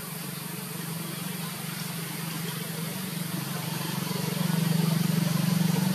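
A motor engine running steadily, a low hum that grows louder about four seconds in.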